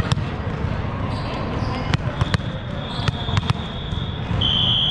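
Several sharp volleyball thuds on the hard court, ringing in a large hall, then a referee's whistle, faint at first and blown loud near the end, signalling the serve, over a steady murmur of voices.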